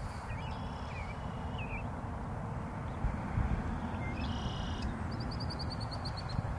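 Songbirds calling in a marsh: a few short, thin calls in the first two seconds, a brief buzzy call around the middle, and a rapid high trill near the end, over a steady low background rumble.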